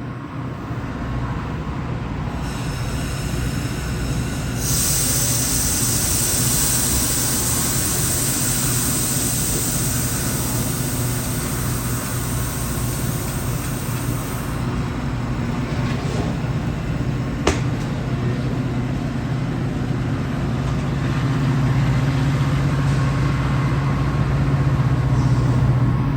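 Metra diesel commuter train of bi-level gallery cars pulling out of the station: a steady low rumble and drone of the train on the rails, with a higher rushing noise from about five to fifteen seconds in. A single sharp click sounds about two-thirds of the way through, and the low drone grows louder near the end.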